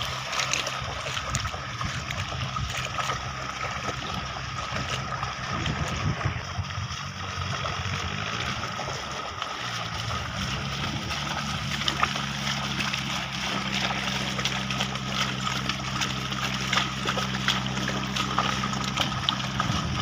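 Bullocks' hooves and a wooden plough sloshing through flooded paddy mud, with irregular wet splashes and squelches. A steady low hum comes in about halfway.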